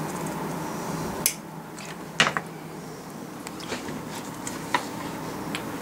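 Steel cuticle nippers snipping a spotted puffer's overgrown beak teeth: a few sharp clicks, the loudest about a second and two seconds in, then fainter clicks, over a steady low hum.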